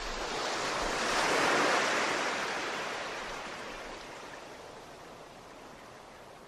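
Ocean surf washing up a beach: a rush of water noise that swells over the first two seconds, then slowly dies away.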